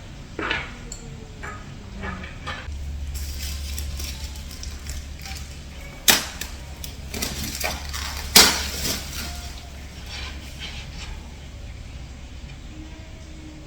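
Wooden high-chair parts and fittings being handled during assembly: scattered clicks and knocks, with two sharp knocks about 6 and 8.5 seconds in, over a low steady hum.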